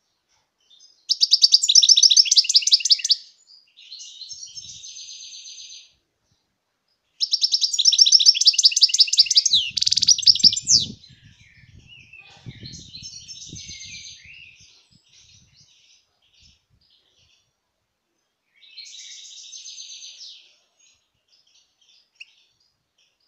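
European goldfinch singing in rapid, high twittering phrases. Two loud runs of two to four seconds each, about a second in and about seven seconds in, with softer twittering between them and one more soft phrase near the end.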